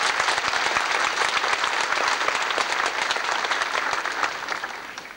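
A large crowd applauding steadily, dying down near the end.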